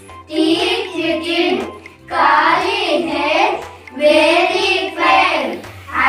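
A group of children singing a nursery rhyme together, in sung lines of about two seconds each with brief breaks between them.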